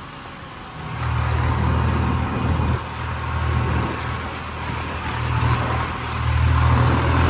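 Swaraj 963 4WD tractor's diesel engine running as it drives, heard from the driver's seat; the engine note comes up strongly about a second in and then rises and eases a little.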